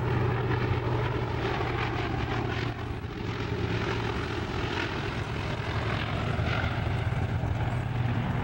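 Canadair CL-215 water bomber's twin piston radial engines and propellers droning steadily as it flies past.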